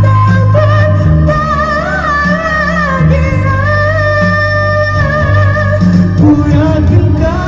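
A woman singing live into a microphone through a PA, holding long notes with a wavering vibrato, over electronic keyboard accompaniment with a steady bass line.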